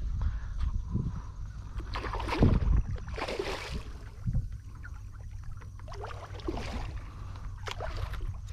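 Water splashing and sloshing around a fishing kayak, with several short splashes, over a steady low rumble of wind on the microphone.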